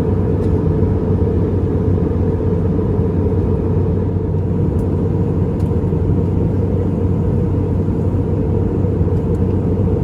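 Steady cabin noise of an Airbus A320-200 in flight: a constant low rumble of airflow and engines with a faint steady hum over it.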